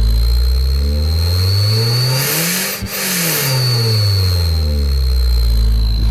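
A car engine revs up once over about two seconds and then drops back down, with a hiss that swells at the peak of the rev. A steady high whistling tone runs over it and dips into the hiss around the peak.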